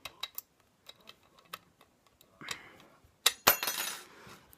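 Small metal clicks and taps, then a sharp click and a louder metallic clinking scrape about three seconds in, as lock-picking tools are handled at a euro-profile cylinder held in a vise.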